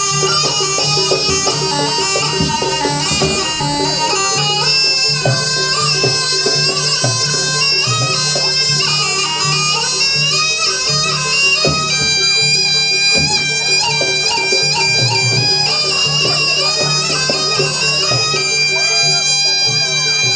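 Live jaranan accompaniment music: a loud reed wind instrument plays a winding melody over a steady low drone, with drum strokes now and then.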